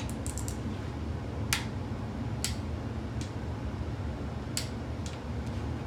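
Torque wrench tightening LS V8 cylinder head bolts on the first 25 ft-lb pass: a quick run of three sharp clicks near the start, then single clicks about a second apart. A steady low hum lies underneath.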